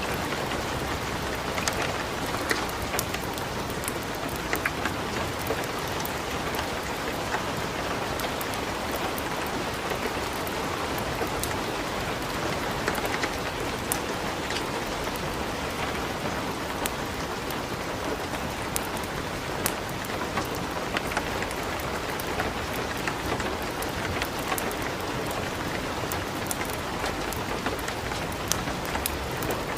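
Light rain falling steadily, mixed with the scattered sharp crackles of a wood fire burning in a fireplace.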